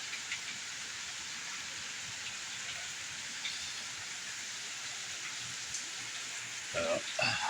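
Steady rain falling in a thunderstorm, with a few sharp drips. A brief pitched sound comes near the end.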